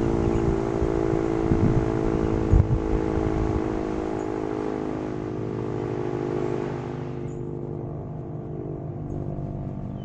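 Sentry 10V outdoor warning siren holding a steady tone that slowly fades, its higher part dropping away about seven seconds in. Wind rumbles on the microphone underneath.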